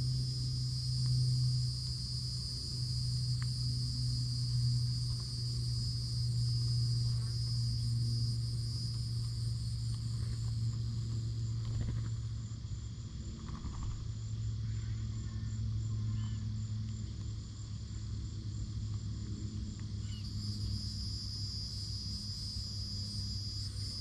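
Insects trilling in a steady high-pitched chorus that fades out about ten seconds in and starts up again near the end, over a steady low hum.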